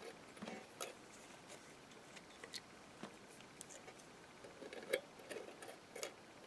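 Faint, scattered clicks and taps of small metal flower embellishments and their plastic packets being handled and set down on a craft board, with the sharpest tap about five seconds in.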